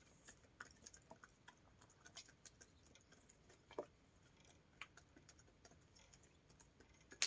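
Hens pecking at cucumbers and scraps on the ground: faint, irregular beak taps and clicks, with a few louder pecks.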